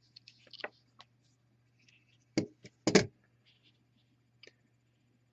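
Handling noise from a small pendant and measuring tool: scattered light clicks, then two sharp knocks about half a second apart near the middle, over a faint steady hum.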